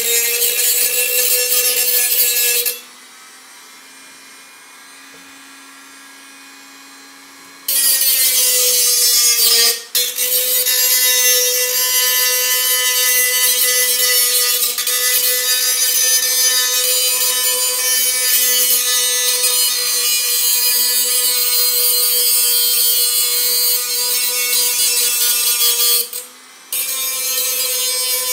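Black+Decker RT18KA rotary tool's cutoff wheel grinding into a tin can: a loud, harsh screech over a steady motor whine. About 3 s in the cutting stops for some five seconds, leaving only a quiet hum, then resumes, with two brief breaks later on.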